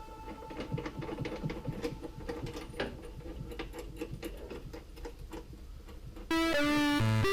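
Background music with light plucked, guitar-like notes that jumps to a much louder melody about six seconds in.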